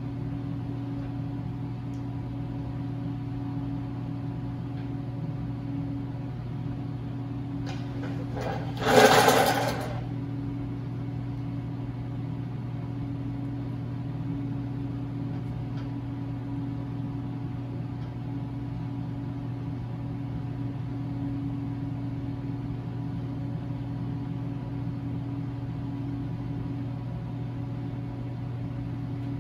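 Steady machine hum, with one short, loud rasp about nine seconds in.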